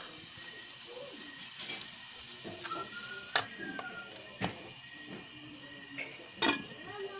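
A cricket chirping in fast, even, high pulses throughout, with a few sharp clinks of cookware, the loudest about three and a half seconds in.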